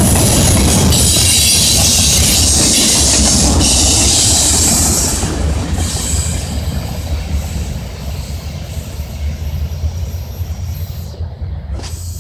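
Freight train cars rolling past close by: a low rumble of wheels on rail with a high-pitched wheel noise. About five seconds in it drops off as the last cars pull away, leaving a fainter rumble.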